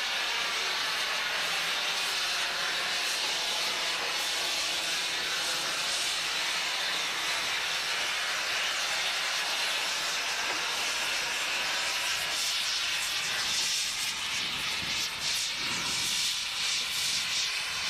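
Steady, loud hiss of escaping steam from a Mallet tank steam locomotive standing in steam. Some uneven lower sounds join in near the end.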